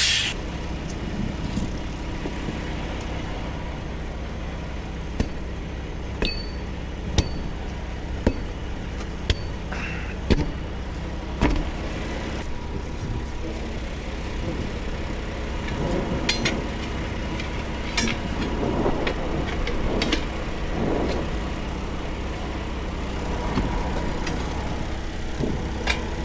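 Truck engine idling steadily, with sharp metal clanks of tire tools striking about once a second for a stretch near the middle.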